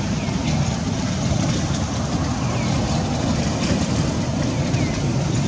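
Steady low rumbling background noise, with a few faint short downward-gliding chirps.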